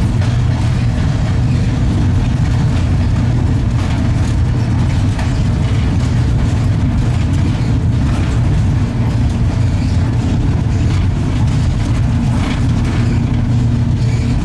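Steady low running hum of an LEW-built EL2 electric locomotive under way with a train of loaded coal wagons, with wheel-on-rail noise and a few faint clicks.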